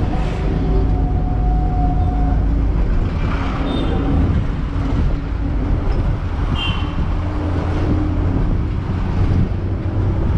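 Bus driving along a town street, heard from a seat at its open window: steady low engine drone and road noise.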